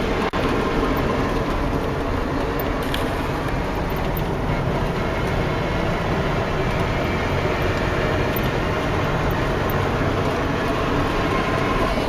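Steady drone of a car driving along, heard from inside the cabin: road, engine and wind noise, broken once by a very short dropout just after the start.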